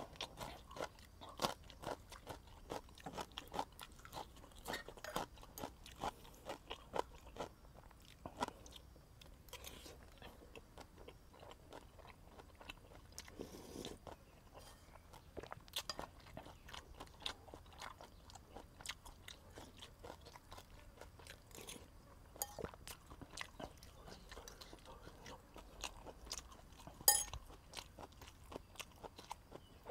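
A person eating close to a lapel microphone: soft, irregular chewing, crunching and mouth clicks, with a sharper click near the end.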